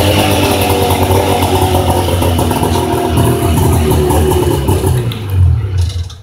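1993 Arctic Cat 440 snowmobile's two-stroke engine running steadily. It rises briefly about five seconds in, then dies away and stops near the end.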